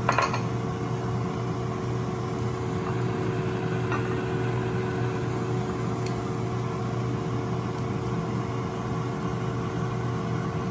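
Countertop air fryer running, its fan giving a steady hum. A brief clink sounds at the start.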